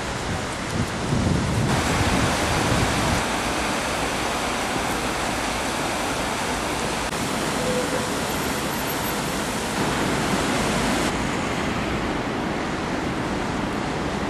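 Steady rushing noise of a swollen river in flood, its fast, churning brown current running high. A low rumble sits under it in the first few seconds.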